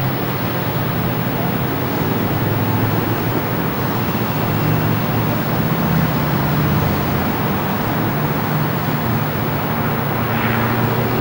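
Steady rumble of running vehicle engines and traffic noise, with a low steady hum and a brief louder swell about ten seconds in.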